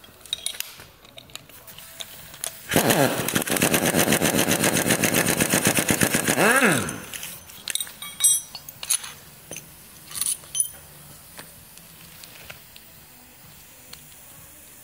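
Impact wrench hammering for about four seconds, its motor whine rising as it spins up and falling as it stops. A few sharp metal clinks of tools being handled follow.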